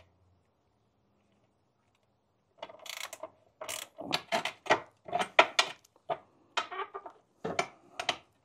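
Ratchet wrench clicking in short runs, about two strokes a second, as a bolt holding the ECU is loosened. The clicking starts about two and a half seconds in.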